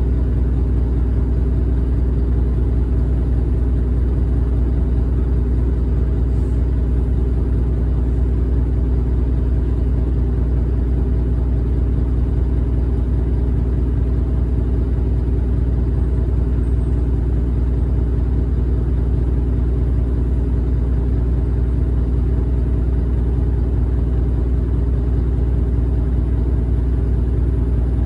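A Tokyu city bus's engine running with a steady low rumble that holds the same pitch and loudness throughout.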